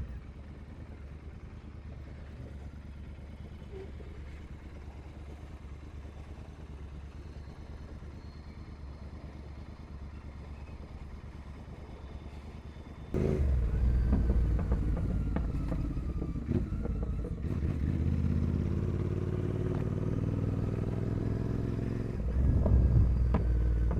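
Royal Enfield Continental GT 650's parallel-twin engine through a full carbon 2-into-1 racing exhaust, running low and steady. About halfway through it suddenly gets much louder as the bike is opened up, with the engine note shifting in pitch, and there is a louder rev near the end.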